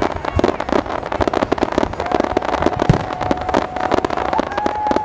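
Fireworks going off: a dense, rapid crackling and popping of many small bursts, with a steady high tone joining about two seconds in.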